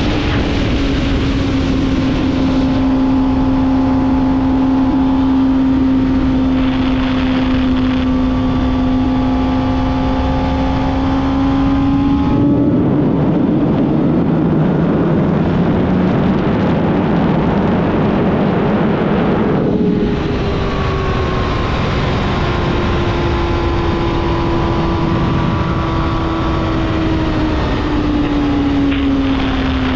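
2005 Suzuki GSX-R600's inline-four engine running at high revs under way, with wind rushing past. The engine pitch sinks slowly, falls lower under heavier wind noise around the middle, then comes back higher about two-thirds in and sinks again, with a quick change in pitch near the end.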